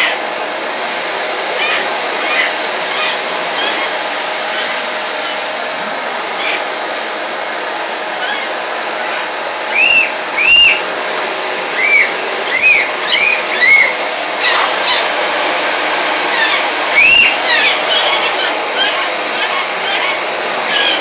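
Vacuum cleaner running steadily with a high whine as its floor head is pushed over carpet. A lorikeet's short arched calls cut through it, several in quick succession from about ten seconds in and once more near the end.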